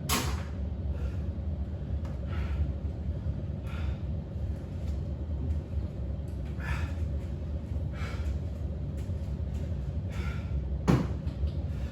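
A person breathing out every second or two while resting after a set of exercises, over a steady low hum. A sharp knock or thud comes near the end.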